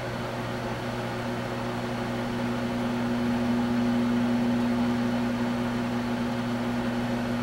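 Microwave oven running: a steady electrical hum.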